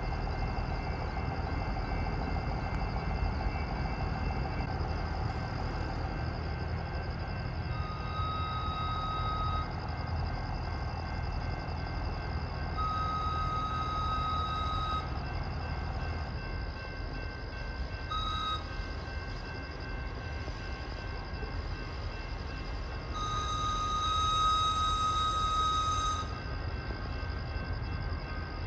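Air whistle on the back-up hose of an Amtrak Superliner car, blowing the grade-crossing signal: two long blasts, one short and one long, each a single shrill tone. Under it runs the steady low rumble of the passenger train backing along the tracks.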